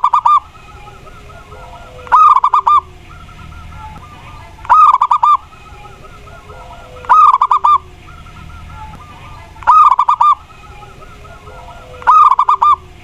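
Zebra dove (perkutut) cooing its song: a short phrase of rapid rolling notes, repeated about every two and a half seconds.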